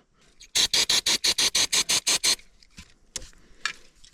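Quick, even scrubbing strokes, about eight a second for nearly two seconds, from a small brush cleaning corrosion off electrical connector terminals, followed by a few light ticks.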